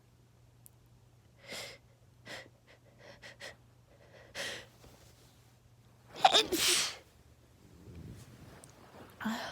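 A woman gives several short breaths and sniffs, then one loud sneeze about six seconds in. It is an allergic sneeze from pollen hay fever that her allergy medicines have not stopped.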